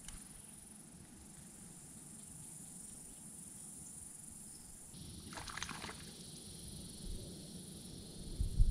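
Steady high-pitched drone of an insect chorus. A brief rustle about five seconds in, and low rumbling near the end.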